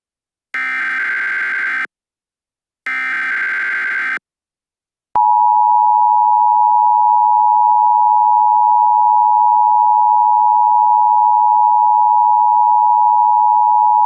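Emergency Alert System tones: two short bursts of SAME header data, a harsh buzzy screech of a little over a second each with a short gap between, then about five seconds in the long, loud, steady two-note EAS attention tone (853 and 960 Hz sounded together).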